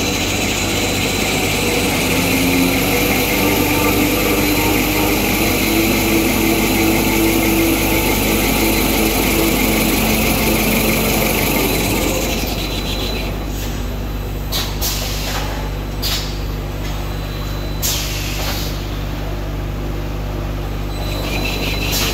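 Kitchen towel paper rewinding and embossing machine running: a steady electric-motor hum under a loud hiss of the paper web and rollers. The hiss thins about halfway through, and a few sharp knocks follow.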